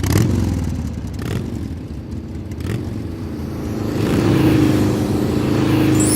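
Motorcycle engine running and revving, dropping in pitch at the start, then rising and growing louder toward the end.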